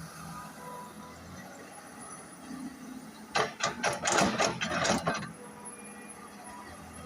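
Excavator at work: a low, steady engine hum, broken about three seconds in by roughly two seconds of loud metallic rattling and clanking.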